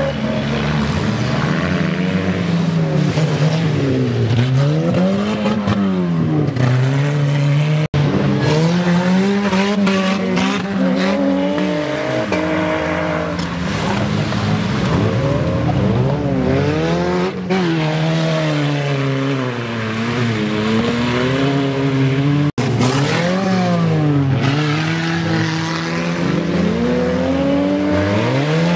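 Engines of old cars in a wreck race, revved up and down over and over as they race, with some tyre squeal. The sound breaks off for an instant twice, about a third of the way in and again about three quarters through.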